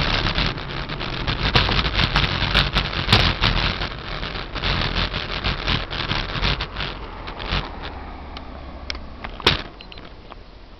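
Car moving slowly, with rumbling wind and road noise on the microphone and many small knocks and clicks; it grows quieter as the car slows, and a single sharp click comes near the end.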